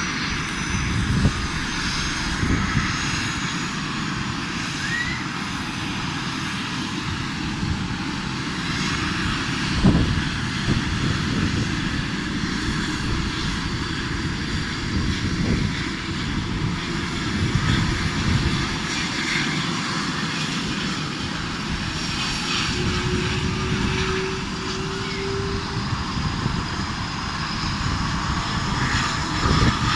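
Helicopter running steadily overhead, a constant engine and rotor noise with no pauses.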